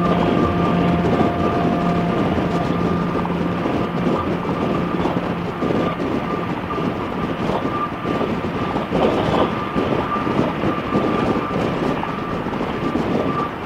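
Harley-Davidson V-twin motorcycle cruising at road speed: a steady engine drone under a constant rush of wind.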